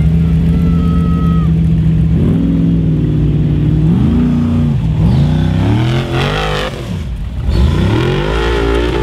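A Formula Offroad buggy's engine holds steady revs for about two seconds, then revs hard up and down several times as it climbs a steep sand hill.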